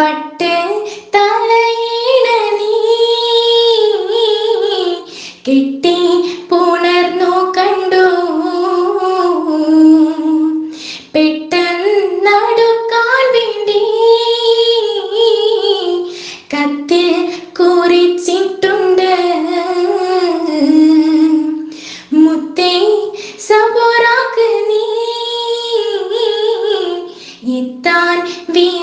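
A woman singing a Mappila song, a Malayalam letter song (kathu pattu), in long, ornamented phrases of about five seconds each with short breaths between them.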